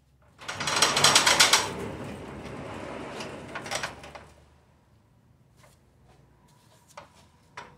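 Ratchet wrench clicking rapidly while a bolt is loosened, loud for about a second, then a softer steady mechanical run for two more seconds. A few light knocks of tools or metal follow near the end.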